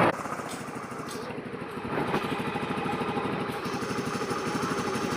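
Hero Maestro Edge scooter's single-cylinder engine idling with a rapid, even beat, slightly louder from about two seconds in. It is running after a repair meant to cure the tractor-like noise it made before.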